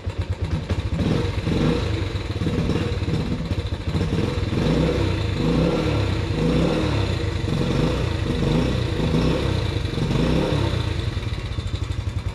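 Yamaha Raptor 80 ATV's small single-cylinder four-stroke engine, freshly started, being revved up and down by the throttle for several seconds, then settling back to an even idle near the end.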